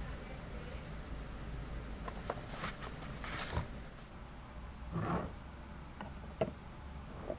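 Scattered light knocks, clicks and brief rustles of objects being handled, over a low steady hum.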